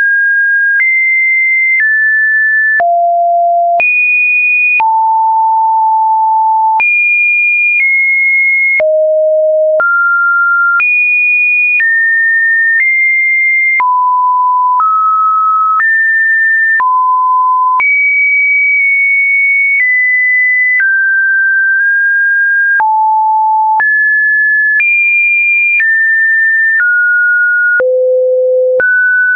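A sequence of Webdriver Torso-style test tones: plain sine beeps, about one per second, each held steady and then jumping abruptly to a new, random-seeming pitch, some higher and some lower.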